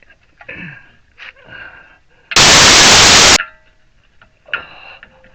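A loud burst of steady hissing noise, about a second long, that starts and stops abruptly, among faint clicks and handling sounds.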